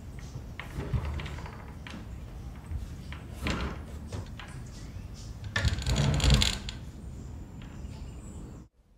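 Knocks and rattles of a wooden door being handled and opened. The loudest clatter comes about six seconds in, and the sound cuts off suddenly near the end.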